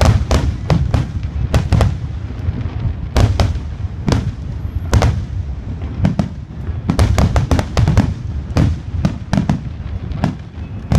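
Aerial firework shells bursting in quick succession: sharp bangs over a continuous low rumble, with a dense cluster of reports about seven seconds in.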